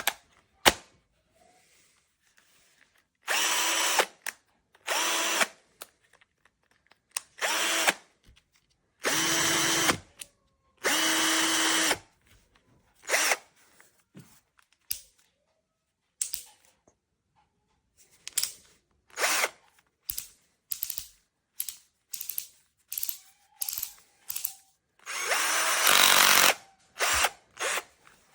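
Cordless drill/driver's motor running in repeated bursts of about a second each, then a string of quick short trigger pulls, with another longer run near the end. Each run is a steady whine.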